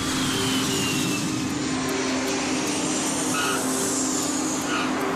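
Jet airliner flying past: a steady rush of engine noise with a faint high whine that slowly falls in pitch.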